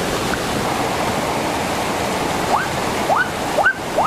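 Rushing water of a swollen, fast-flowing stream over rocks, a steady roar. From about halfway in, several short rising calls cut in over it.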